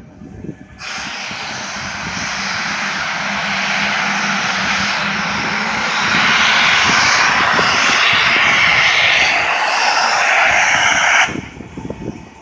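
Boeing 757-200 airliner's jet engines heard from a distance: a dense hissing jet noise that comes in suddenly, grows steadily louder over several seconds, then drops away abruptly near the end.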